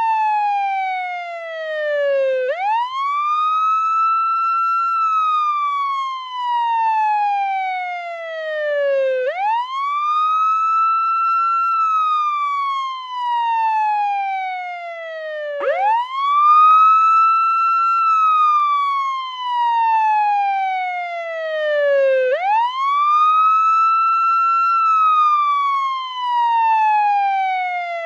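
Portuguese ambulance siren on its wail setting. The tone sweeps up quickly, holds high for about two seconds, then glides slowly down over about four seconds. The cycle repeats about every six and a half seconds, four times.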